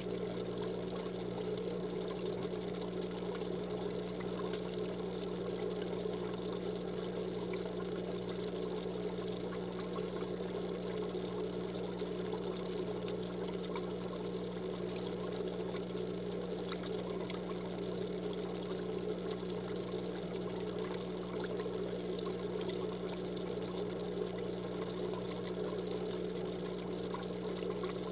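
Aquarium filter running: water trickling steadily over a low, constant hum.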